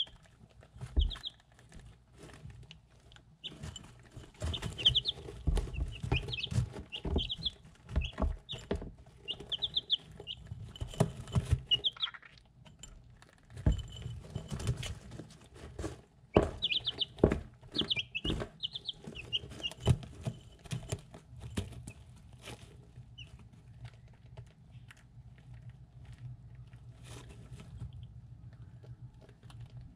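Three-week-old chicks peeping in short, high chirps, busiest in the first half and thinning out after about twenty seconds. Through the chirps come sharp taps and knocks as they peck and drink at a ceramic dish.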